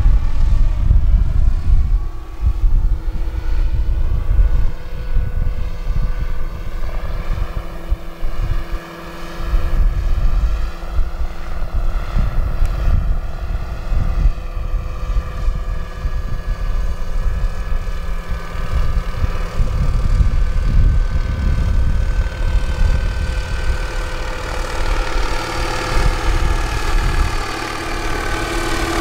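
Large-scale radio-controlled Huey helicopter model flying: a steady whine from its drive and rotors with a low, uneven rumble underneath, the pitch bending slightly as it passes about halfway through.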